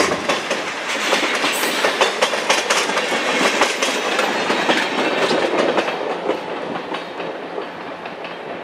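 Freight train of tank cars rolling past, steel wheels clicking over rail joints in a quick, uneven clatter that grows quieter over the last few seconds as the cars move away.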